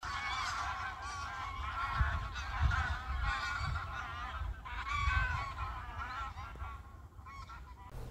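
A flock of geese honking in flight, many calls overlapping, easing off over the last couple of seconds, with a low gusty rumble beneath.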